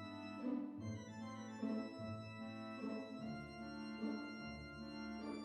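Background music: sustained organ chords over a bass line that moves in a slow, even pulse of about one note a second.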